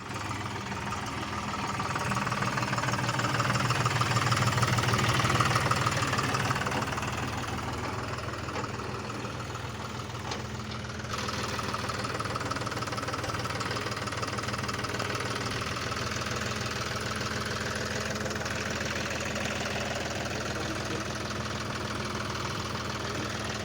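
Tractor engine running steadily, swelling louder for a few seconds before easing back, with a slight change in its note about halfway through.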